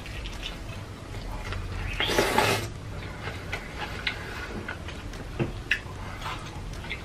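Close-miked eating sounds of sauce-drenched fried chicken: wet smacking and chewing with scattered small clicks, and one louder, longer burst of biting about two seconds in.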